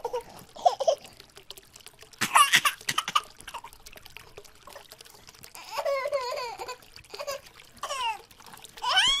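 Water sloshing and splashing in a basin as hands stir a pile of plastic toys. Several short high-pitched squeals rise and fall in pitch over it, the loudest about two seconds in, around six seconds and near the end.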